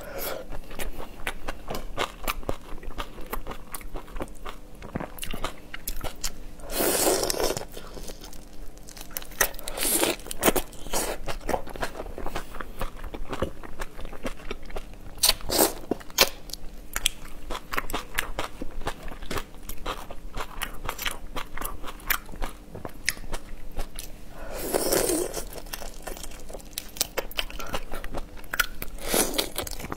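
Close-up eating sounds: whole shrimp shells cracking and being pulled apart by hand, with crunching, biting and wet chewing. Small crackles run throughout, with a few louder, longer crunches spread through it.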